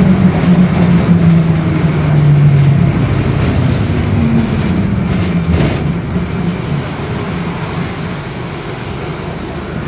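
Mercedes-Benz OF-1721 Bluetec 5 bus running, heard on board: diesel drivetrain noise with a low, wavering growl from the differential. The growl fades and the overall sound eases off over the second half.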